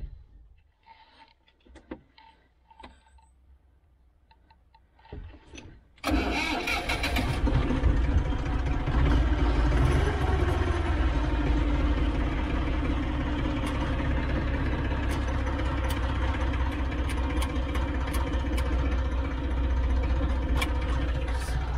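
A Massey Ferguson 254 S tractor's diesel engine starts about six seconds in, after a few faint clicks, then runs steadily.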